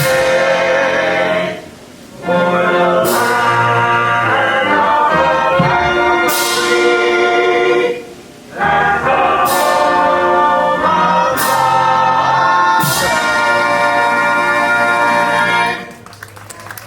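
Choir singing held chords with a brass band accompanying, broken by two short pauses between phrases; the music stops near the end.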